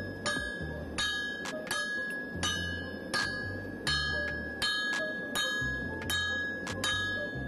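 Sledgehammer blows on red-hot leaf spring steel laid over an anvil, the anvil ringing after each strike, in a steady rhythm of about three blows every two seconds: the steel being drawn out for a sword blade.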